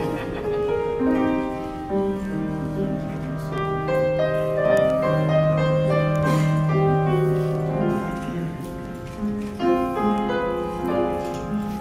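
Slow keyboard music, sustained chords with some notes held for several seconds, played as processional music.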